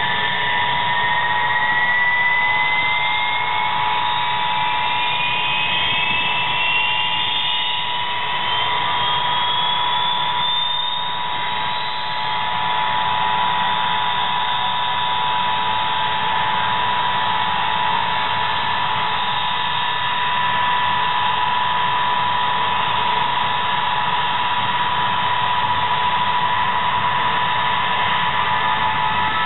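Ilyushin Il-76's Soloviev D-30KP turbofan engines whining steadily during engine start-up, while one engine spools up: a whine that climbs steadily in pitch over about twelve seconds, then holds. Near the end another whine begins to rise as the next engine spools up.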